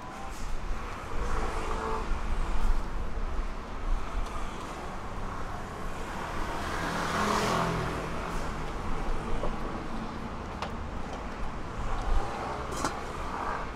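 Street traffic noise, with a vehicle passing by and swelling loudest about halfway through, and a couple of light clicks near the end.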